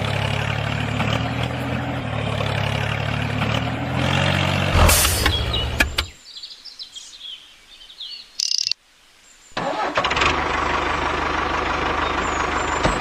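A vehicle engine running steadily, then cutting out for a few seconds while birds chirp. About four seconds later the engine starts up again and runs on.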